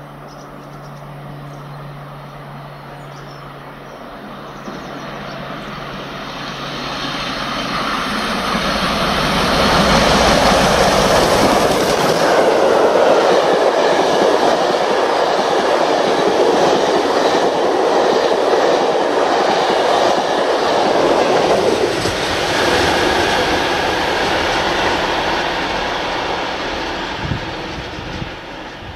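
A diesel multiple unit's engine hums steadily for the first few seconds. Then the rebuilt Bulleid West Country class steam locomotive 34046 'Braunton' and its coaches pass at speed: the sound builds, is loudest for about twelve seconds, and fades away toward the end.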